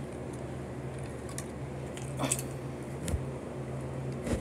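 Faint handling noises from die-cast toy cars being set down and arranged on a blanket: a few light clicks, over a steady low hum.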